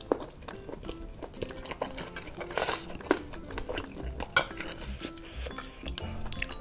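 Mouth sounds of chewing baso aci, with short clicks and clinks of a metal spoon and fork against the bowl as they cut into a jumbo meatball.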